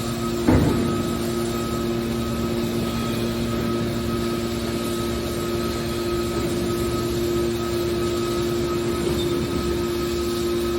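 Hydraulic metal baler's power unit running with a steady hum, and one loud knock about half a second in.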